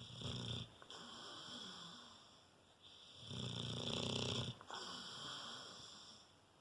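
Rottweiler snoring in its sleep: a short snore at the start, softer breathing, then a longer, louder snore about three seconds in.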